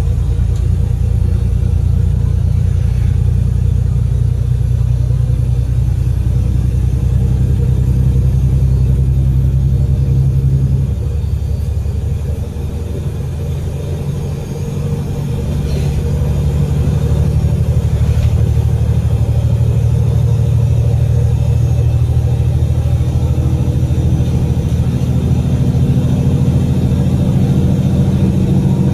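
Cummins L9 six-cylinder diesel engine of an Alexander Dennis Enviro500 MMC double-decker bus, driven through a Voith DIWA automatic gearbox and heard from the rear seats near the engine, running steadily under load. About eleven seconds in, the engine note drops and quietens for a few seconds, then builds up again.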